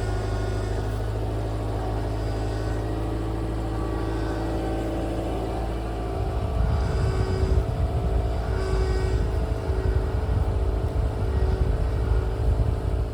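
Subaru Legacy B4 (BL5) flat-four idling. About six seconds in, a louder, uneven low rumble starts with a mid-pitched tone that comes and goes. This is the new noise that appears when the steering wheel is turned, for which the body shop first recommended changing the power steering fluid.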